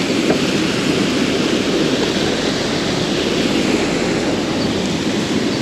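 Steady rushing of a fast-flowing stream, an even noise without pitch.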